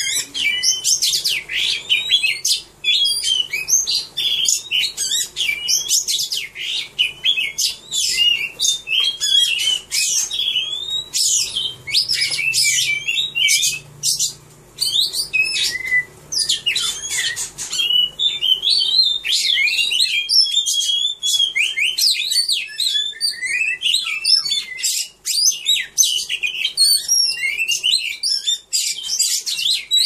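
Oriental magpie-robin singing a fast, varied song of high whistles, sliding notes and sharp chips, running on almost without a break apart from a few short pauses.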